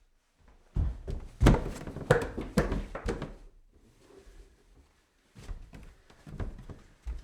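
Footsteps climbing stairs: a cluster of heavy footfalls and knocks on the steps, then a quieter stretch, then another run of thudding steps near the end.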